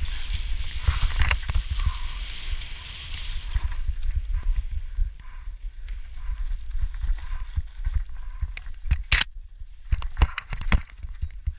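Mountain bike ridden fast down a dirt trail: tyres rolling and crunching over the dirt, and the bike clattering and clacking over bumps, with a loud clack about nine seconds in. Wind and jolts rumble heavily on the camera microphone.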